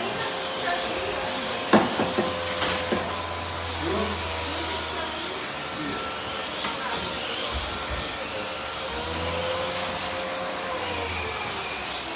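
Slot cars' small electric motors whining steadily on the track amid a hiss, the pitch dipping and rising again near the end as the cars slow and speed up. A sharp knock about two seconds in, followed by a few lighter clicks.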